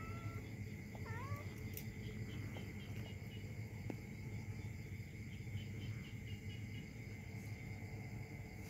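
A kitten gives one short, high mew about a second in, over steady insect chirring and a low background hum.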